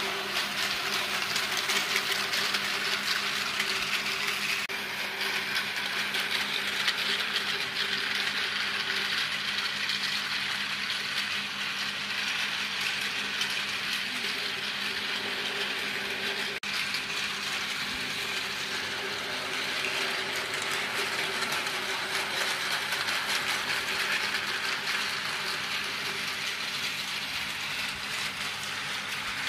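Tomy Plarail battery-powered toy trains running on plastic track: a steady hum from the small motors and gearing under a continuous rattle and clatter of the plastic wheels and wagons on the track.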